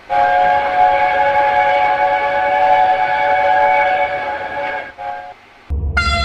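Train chime whistle sounding one long, steady chord of several notes for about five seconds, followed by a short second blast. Near the end a different sound cuts in with a low rumble and its own cluster of tones.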